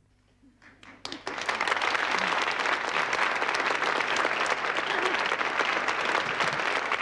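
Audience applause: a few scattered claps, then full applause breaking out about a second in and continuing steadily.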